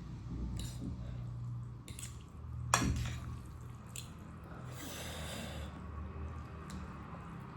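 Close-miked eating sounds during a mukbang: a few sharp clicks and taps, one louder tap a little under three seconds in, and a brief rustle about five seconds in, over a low steady hum.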